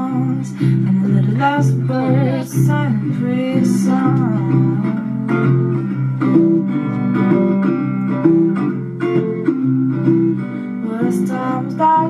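Acoustic folk music: strummed acoustic guitar with a wavering sung or sliding melody above it.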